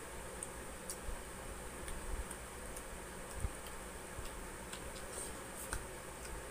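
Close-up eating sounds: scattered soft clicks and smacks of chewing and of fingers picking at fried tilapia, over a steady low hum.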